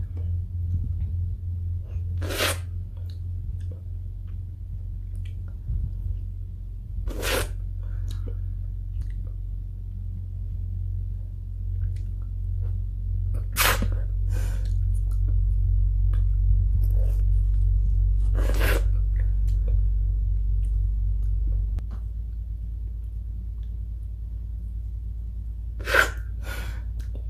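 Five short, breathy mouth noises a few seconds apart, from a person eating a frozen yogurt pop, over a steady low hum.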